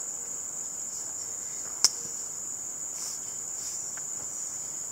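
Steady high-pitched chorus of crickets, with one sharp click about two seconds in.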